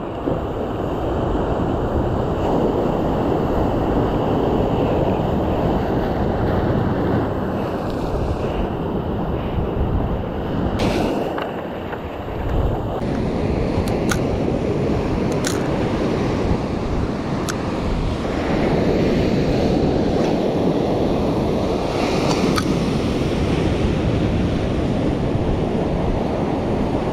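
Ocean surf breaking and washing on the shore, mixed with wind buffeting the microphone, a steady loud rush throughout.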